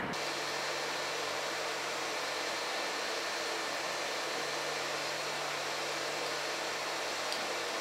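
Steady, even hiss of room background noise with a faint low hum and no distinct events.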